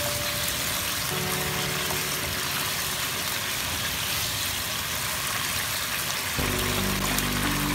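Background music with held notes that becomes fuller about six seconds in, over a steady hiss of mapo tofu sauce sizzling in a hot wok as it is stirred.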